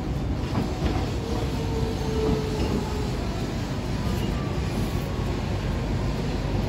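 Hiroden 3950-series 'Green Liner' articulated low-floor tram rolling slowly into a station platform: a steady low rumble of wheels on rail, with a brief faint squeal about two seconds in.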